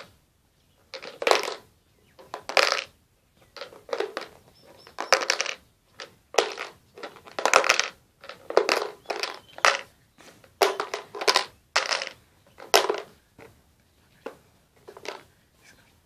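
Iron nail clattering inside a clear plastic food container as the container is turned over again and again: a series of short knocks and rattles against the plastic, roughly one a second.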